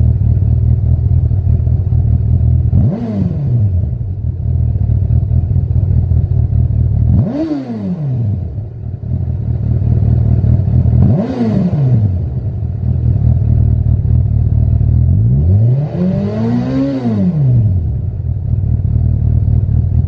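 Honda CB1000R's inline-four engine idling through a Lextek SP1 aftermarket silencer, blipped four times. Each rev rises and falls back to idle within about a second, and the last one is held a little longer.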